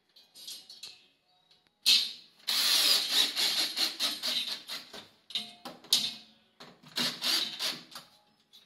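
Cordless drill-driver running in bursts as it drives screws through a metal mounting plate into the wall: a brief run at the start, a long run of about three seconds from about two seconds in, then two shorter runs of about a second each.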